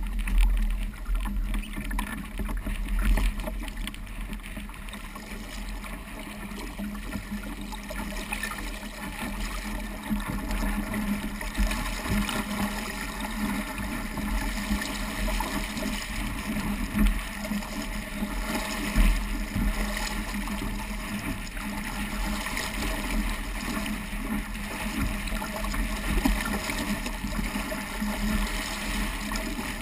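Water rushing and splashing along the hull of a small Sabot sailing dinghy as it heels and cuts through choppy waves, with a steady low rumble of wind on the microphone. A few louder slaps of spray stand out, about a second in, near three seconds and twice past the middle.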